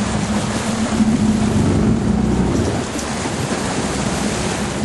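Sport-fishing boat's engine running steadily, a constant low hum, under wind and water noise.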